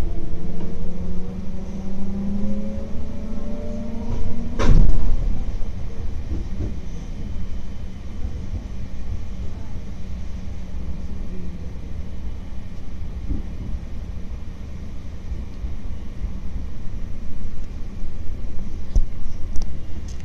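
JR Tokai electric train running with a steady low rumble. For the first few seconds there is a slowly rising whine, then a single sharp knock a little before five seconds in.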